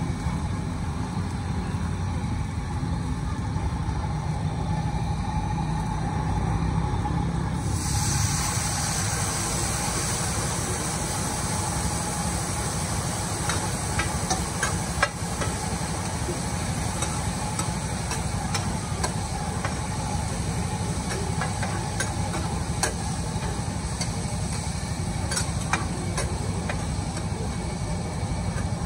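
A wide pan of rice noodles hissing and sizzling over high heat, with a low steady rumble underneath. About eight seconds in the hiss turns suddenly louder and brighter as steam billows up, and from about halfway on a metal ladle clinks and scrapes against the pan now and then.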